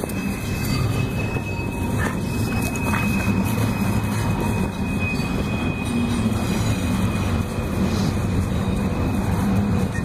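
Wind buffeting the microphone: a steady low rumble with a rushing hiss over it.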